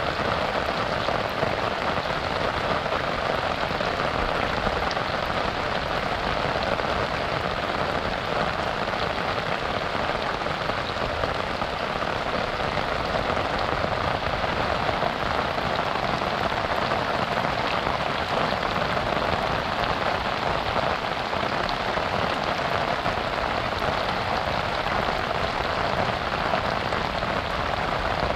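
Rain falling steadily on a river, an even, unbroken hiss.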